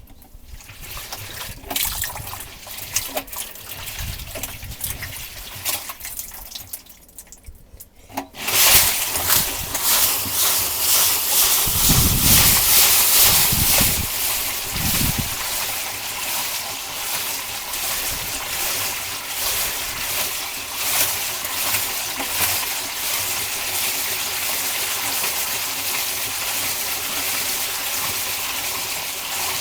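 Tap water running into a toy washing machine: faint trickling at first, then a loud steady gush that starts suddenly about eight seconds in.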